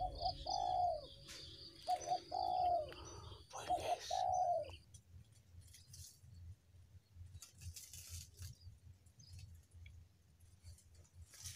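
A dove cooing three times in the first five seconds, each call a short note followed by a longer falling note. After that there are only faint scattered ticks.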